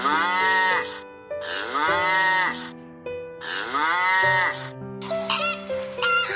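Three long, drawn-out livestock calls about two seconds apart, over background music with sustained notes. Near the end come several shorter, higher calls.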